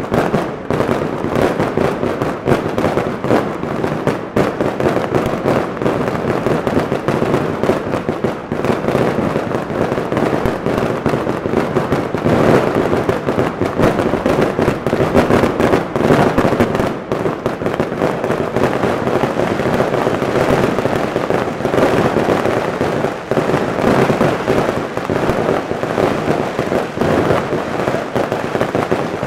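Daytime fireworks going off in a dense, continuous barrage of rapid bangs and crackles, with no pause.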